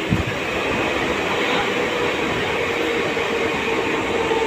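Mumbai suburban local train running, a steady rush of wheel and air noise heard from inside the carriage by the open door. A faint steady whine joins in and grows stronger toward the end.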